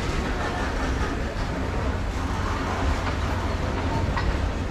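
Open-top freight wagons of a goods train rolling slowly past on the rails: a steady low rumble of steel wheels on track, with a short faint click near the end.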